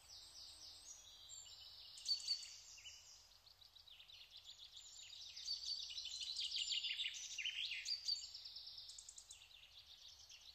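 Faint high-pitched chirping and trilling, in quick trains of ticks and short glides, louder in the middle and fading toward the end.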